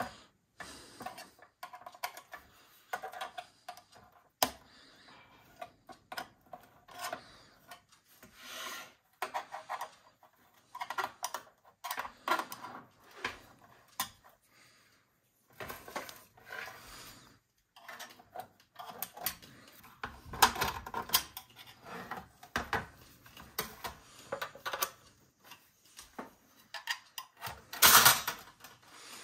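Sheet-metal cover of a Macintosh II power supply being pried off with a screwdriver: scattered clicks, scrapes and metal rattles, with a louder burst near the end as the cover comes away.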